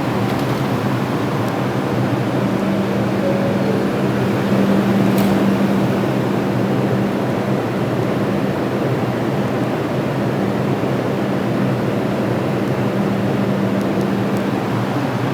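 Steady running noise inside a New York City 5 train subway car: a constant low hum over an even rush of noise.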